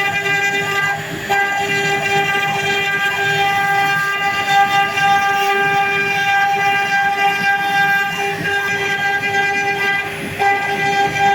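CNC router spindle whining at a steady high pitch while it carves a wooden door panel, the tone briefly dropping out about a second in and again near the end.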